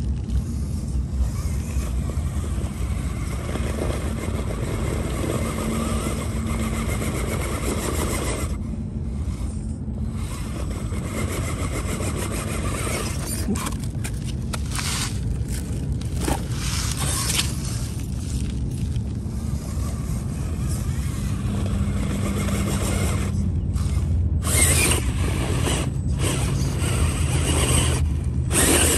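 Axial Capra RC rock crawler's electric motor and gear drivetrain whirring as it climbs a loose dirt mound, with the tyres scraping and crunching on the dirt. The drive comes in stop-start stretches with a few short pauses.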